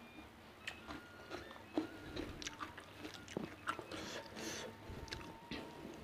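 A person chewing food close to the microphone, with a run of short, irregular wet mouth clicks and smacks.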